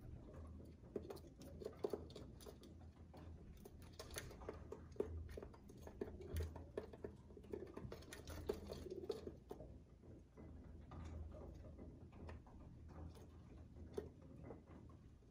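Feral pigeons pecking seed from a bowl on a window ledge: faint, irregular tapping and pattering of beaks and feet, heard through the window glass.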